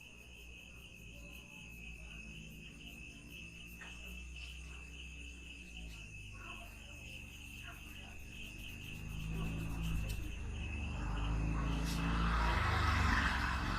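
An insect, likely a cricket, trilling steadily in a fast, even pulse, over a low rumble that grows louder in the last few seconds.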